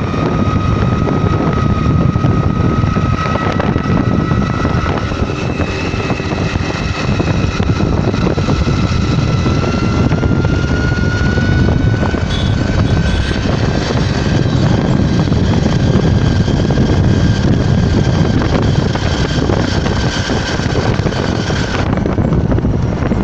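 A road vehicle travelling along: a loud, steady rumble and rush of noise with a high whine that slowly rises in pitch over the first half, holds, then stops near the end.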